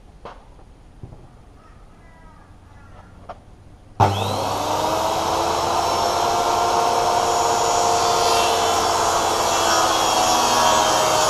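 A few light clicks, then about four seconds in a corded circular saw starts with a quick rising whine and runs steadily, cutting through a sheet of 19 mm plywood.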